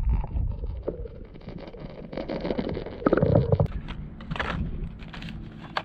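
Muffled low rumbling and knocking of water around a submerged camera, with scattered small clicks, a louder surge about three seconds in and another shorter one about a second later.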